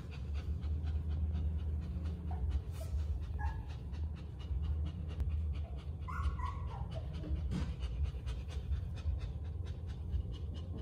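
Sick nursing mother dog panting fast and steadily, about five or six quick breaths a second, over a steady low hum, with a brief high whine about six seconds in.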